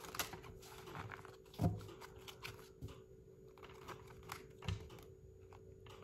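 Irregular light clicks and taps of a deck of oracle cards being shuffled by hand, with two soft thumps, one about a second and a half in and one near the end.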